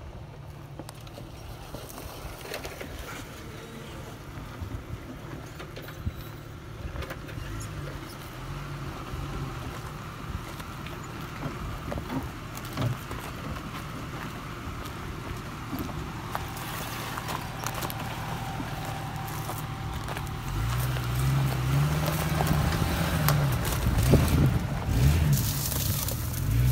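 Engine of a lifted Jeep Cherokee XJ running as it crawls along a dirt trail toward the camera, getting gradually louder. Near the end the revs rise and fall several times.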